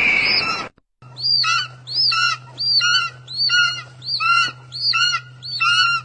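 A loud, noisy sound with a falling high tone cuts off abruptly just under a second in. After a short gap, a bird's short, high, arching call repeats evenly, a little under twice a second, over a steady low hum.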